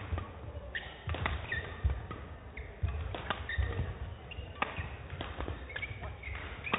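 A fast badminton doubles rally: rackets striking the shuttlecock in a quick run of sharp cracks, about one every half second to a second, with shoes squeaking and feet thudding on the court.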